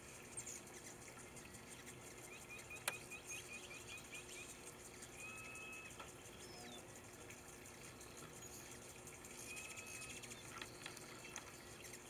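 Faint splashing of a small bird bathing in a shallow metal tray of water, with bird calls over it: a quick run of about ten chirps about two seconds in, and a short whistled note twice, near five and ten seconds in. One sharp click near three seconds.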